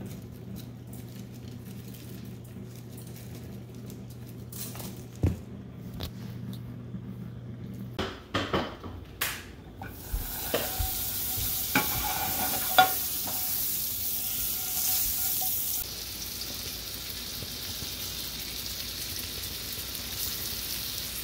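A steady low hum with a few knocks and clatters of pans and bottles, then from about halfway the loud sizzle of butter in a hot frying pan with trout fillets frying in it.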